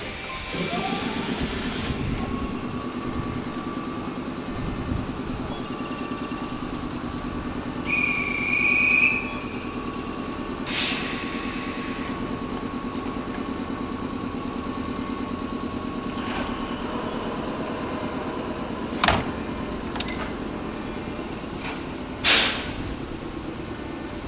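JR West 105 series electric train standing at the platform and then pulling out: a steady low pulsing hum with a whine that rises about half a second in and holds. A short high beep comes about eight seconds in, a hiss about eleven seconds in, and sharp clicks near the end.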